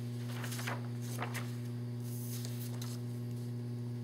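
Steady electrical mains hum, with several soft rustles of a sheet of paper being handled during the first three seconds.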